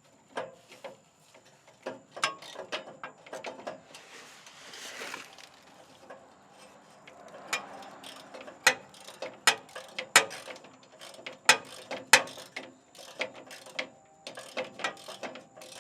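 Hand socket ratchet wrench clicking in short, irregular runs while metal tools clink, louder in the second half, with a brief scraping rush about four to five seconds in.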